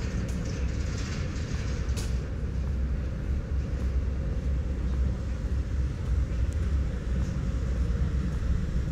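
Steady low rumble of a large vehicle running nearby, with a light click about two seconds in.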